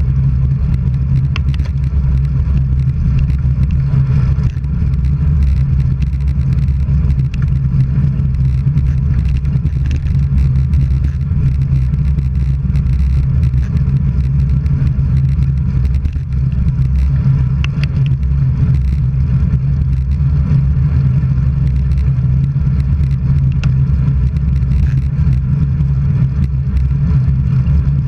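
Steady low rumble of wind and road noise from a camera travelling along the road, with a few faint clicks.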